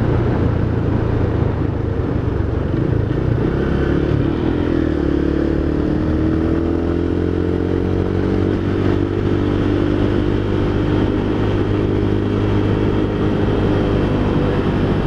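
Honda Tiger Revo's single-cylinder four-stroke engine running steadily under way in fifth gear, heard from the moving motorcycle, its note drifting gently in pitch midway.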